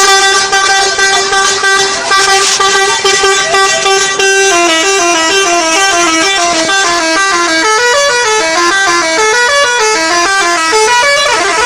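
Indonesian bus 'telolet' multi-tone musical horn: one note is held for about four seconds, then it plays a quick melody of short notes stepping up and down until near the end.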